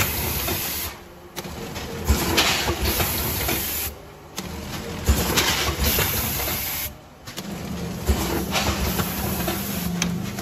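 Vertical form-fill-seal packaging machine with a multihead weigher, bagging rice in a cycle that repeats about every three seconds. Each cycle brings a sharp clunk from the sealing jaws and a stretch of hissing.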